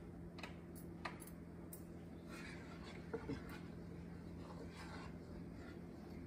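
Wooden spoon stirring a saucepan of milk and cornstarch, faintly scraping along the pan, with a few light clicks of the spoon against the pan. The pudding mixture is being stirred without stopping as it heats toward the boil.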